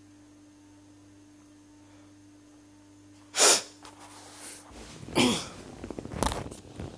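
A steady low hum, then from about three and a half seconds in a person makes three sharp, loud bursts of breath, like sneezes, the second with some voice in it.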